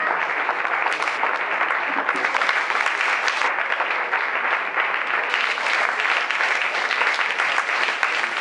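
Audience applauding: many hands clapping in a dense, steady stream that does not let up.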